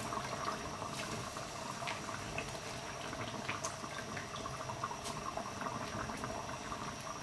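A pot of chickpeas in spiced water boiling, a steady bubbling with small pops here and there.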